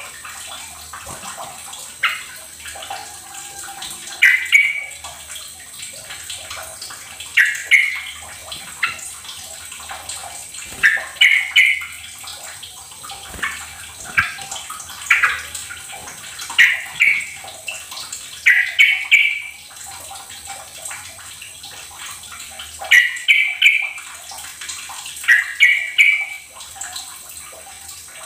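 Yellow-vented bulbul (trucukan) calling: about a dozen short, bright, bubbly phrases, one every couple of seconds, sometimes in quick pairs. They sound over a steady hiss.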